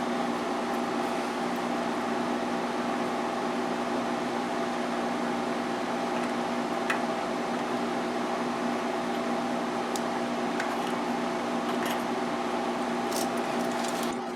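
Steady electric machine hum with a few faint clicks; the hum's upper part drops away near the end.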